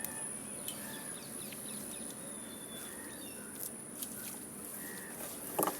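Faint outdoor ambience: a steady high-pitched insect drone with a few short bird chirps and scattered soft clicks.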